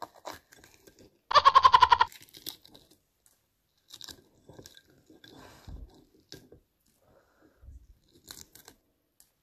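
Small crackles and clicks of a boiled balut's eggshell being cracked and peeled by hand, scattered irregularly with quiet gaps. A short, loud burst of voice comes about a second in.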